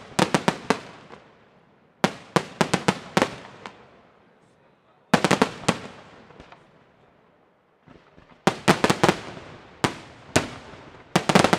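Aerial firework shells bursting in rapid volleys: clusters of sharp bangs come every two to three seconds, each cluster fading away before the next.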